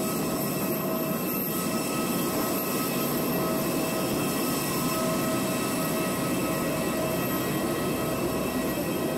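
Steady high-pitched whine of aircraft turbines over a steady rushing noise on an airport apron.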